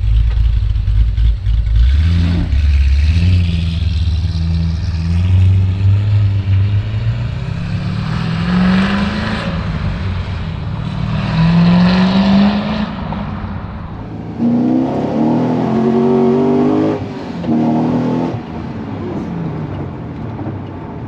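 2008 Corvette C6 Z06's naturally aspirated 7.0-litre LS7 V8, fitted with ported heads and a bigger camshaft, rumbling low and then accelerating hard. The engine pitch climbs and drops back about three times as it pulls up through the gears, then eases off near the end.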